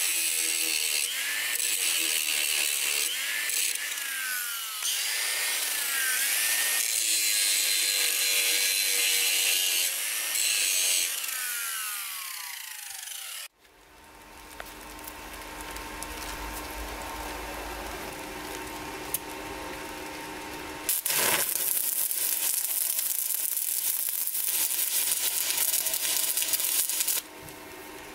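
Angle grinder grinding a groove into steel, its pitch dipping and recovering again and again as the disc bites. Then, after a break, a steady hum, and about three-quarters of the way in a stick (arc) welder burning for about six seconds with an even crackling hiss before stopping suddenly.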